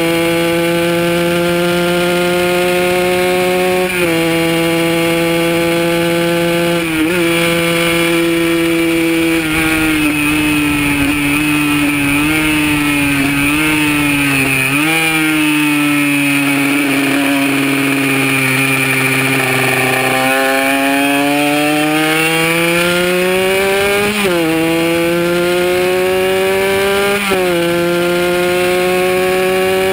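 Kawasaki KR150 two-stroke single-cylinder motorcycle engine at racing speed, heard from onboard. Its pitch drops sharply at upshifts about four and seven seconds in. It then sinks in small steps as the bike slows for a corner, stays low through the corner, and climbs again with two more upshifts near the end.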